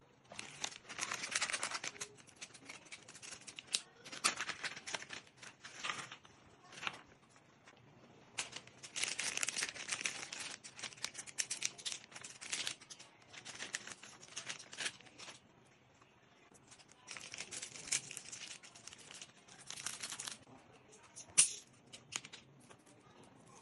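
Plastic snack packets crinkling and rustling in repeated bursts as snacks are shaken and poured from them onto a serving tray. One sharp snap comes near the end.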